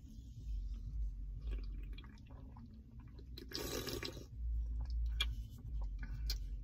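A person drinking from an aluminium Red Bull can: liquid sloshing, sips and swallows, with one louder slurp about three and a half seconds in, over a faint low rumble.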